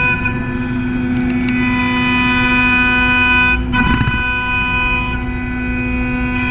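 CaMaster CNC router spindle running with a steady pitched whine over a rushing noise as the bit mills wood. A little past halfway, the whine briefly breaks and wavers as the cut changes, then settles again.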